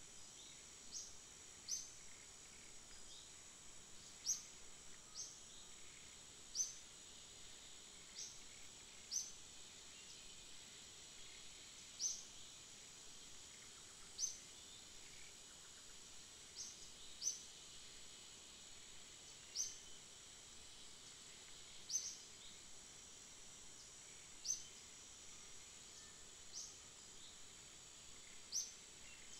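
A steady high-pitched insect drone with a short rising chirp repeated every one to two seconds. The chirps are the loudest sounds.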